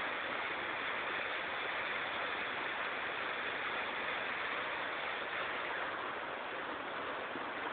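Steady hiss of background noise with no distinct knocks or ball strikes.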